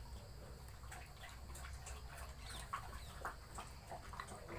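Faint chirping of birds, short quick notes scattered irregularly, with soft clicks among them.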